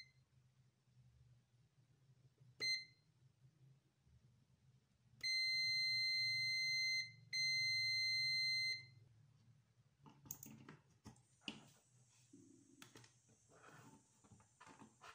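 ANENG AN8002 digital multimeter's continuity buzzer beeping: one short, high-pitched beep about two and a half seconds in, then two long beeps of about two and one and a half seconds with a brief gap between them, sounding as the probe finds a near-zero-ohm path through a connector pin. From about ten seconds in there are clicks and rustling as the power-supply board and its cord are handled.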